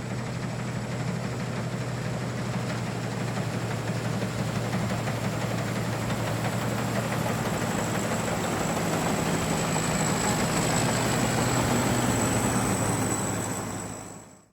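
Tractor engine running steadily with a low hum and a thin high whine, fading out at the end.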